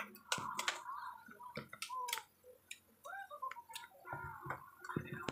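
Scattered sharp clicks and taps of food and paper wrapping being handled at a meal table, with a few short high-pitched vocal sounds in between.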